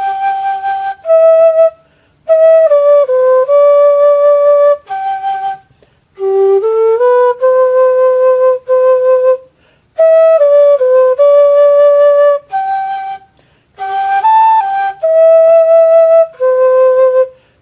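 Homemade PVC-pipe flute playing a slow single-line melody of held notes that step up and down, in short phrases separated by brief breaks for breath.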